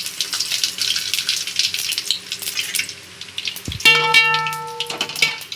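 Whole spices (fennel, cumin, cinnamon, cloves, stone flower) crackling and sizzling in hot oil in a kadai. Near the end a dull thump is followed by a steady musical tone held for about a second and a half.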